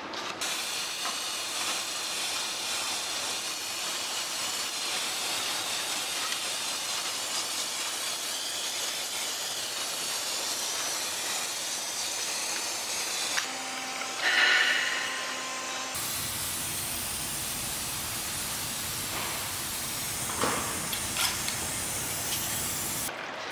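Steady hissing noise, like a spray or rushing air, in several stretches cut together, with a brief louder rasp about 14 seconds in.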